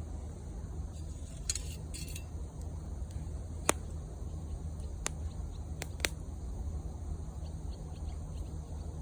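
Wood fire burning with a steady low rumble, a brief hiss, and a few sharp crackling pops through the middle.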